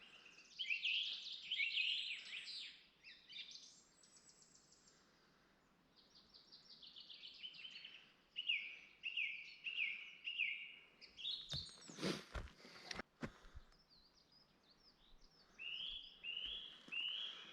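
Songbirds singing in repeated chirping phrases. A few short, noisy knocks come about twelve seconds in.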